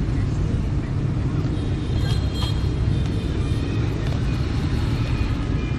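Steady street traffic rumble from passing motorbikes, cars and buses, with a brief high-pitched sound about two seconds in.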